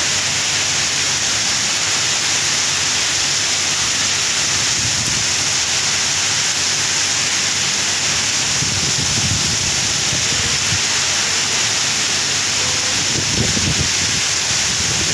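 Heavy rain pouring down steadily onto grass and a paved road, a dense, even hiss.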